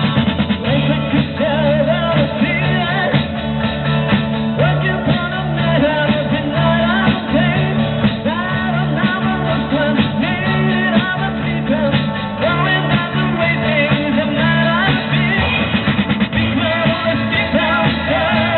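Live rock band playing through a PA: a lead singer over drums and a steady bass line.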